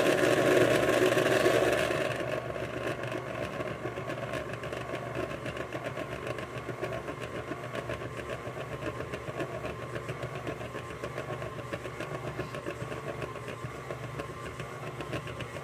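Electric mixer running, beating two eggs into creamed butter and sugar for cake batter; louder for about the first two seconds, then steady and quieter.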